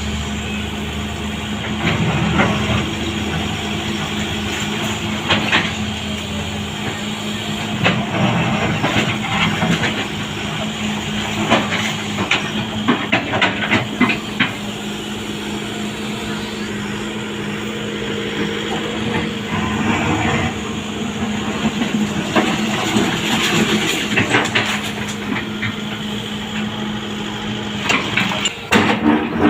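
Sany hydraulic excavator engine running steadily under load, with irregular knocks and clatter of demolition debris being struck and moved.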